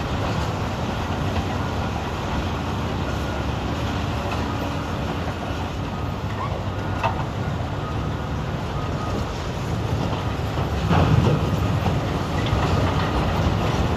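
Heavy diesel engines of Caterpillar 395 excavators and haul trucks running steadily, with scattered clanks of rock and steel. About eleven seconds in it grows louder with a rattling rush of rock as a bucket load is dumped into a haul truck's bed.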